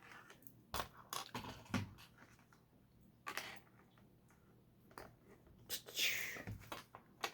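Small plastic LEGO pieces clicking and knocking as they are handled and pressed together, a dozen or so scattered clicks with a brief rustle about six seconds in.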